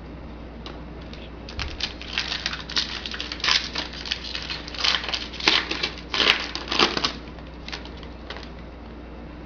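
Foil trading-card pack being torn open and its wrapper crinkled, in a run of irregular rustling bursts that die away near the end.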